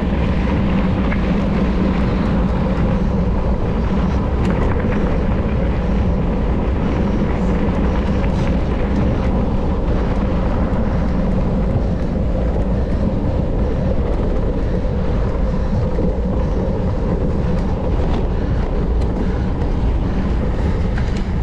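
Steady rush of wind and rolling noise from a mountain bike ridden fast in a race, with faint rattles and ticks scattered through it.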